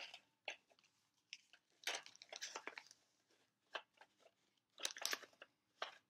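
Plastic clicks and rattles of a Nerf blaster being handled, in short scattered clusters, the busiest about two seconds in and again near five seconds.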